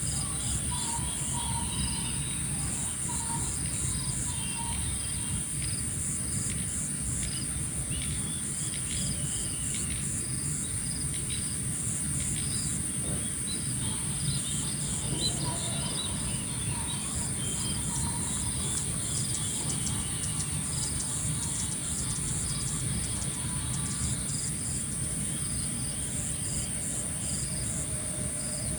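Insects shrilling in a steady high drone with rows of quick repeated chirps, and birds calling here and there, over a constant low rumble.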